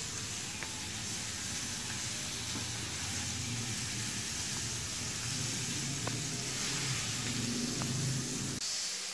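Sliced onions sizzling in a frying pan over a portable gas stove, with a few light clicks of a wooden spatula stirring them. The sizzling cuts off abruptly shortly before the end.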